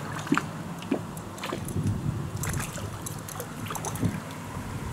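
Spinning reel being wound in, with irregular clicks and small splashes of water as a small fish is brought up to the kayak.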